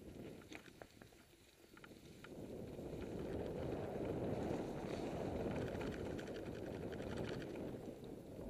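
Wind rushing over the camera microphone mixed with tyre and trail noise from a mountain bike riding fast on a dirt singletrack, with a few sharp clicks and rattles in the first couple of seconds. The rush dips briefly, then swells louder about two seconds in as the bike picks up speed.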